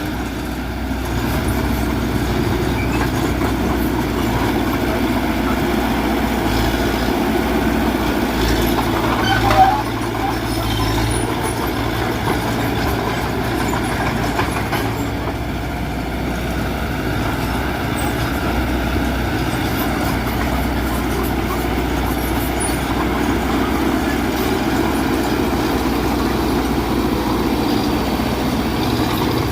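Bulldozer's diesel engine running steadily under load while pushing soil, with one brief louder sound about nine and a half seconds in.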